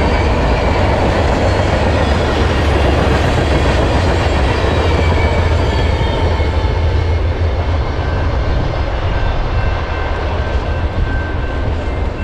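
Freight train cars rolling past: a steady rumble and rattle of steel wheels on the rails, with faint thin high tones over it. The higher sound thins out over the last few seconds as the rumble carries on.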